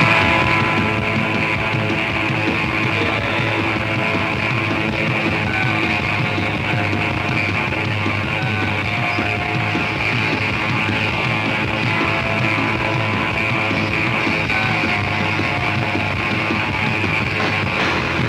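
Guitar rock music kicks in abruptly at full level and plays on steadily, on a lo-fi off-air FM radio recording.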